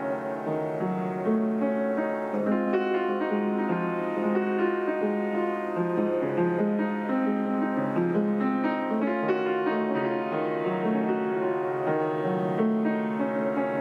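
Upright piano played solo: a melody over held, overlapping chords, with notes sustained and changing every second or two.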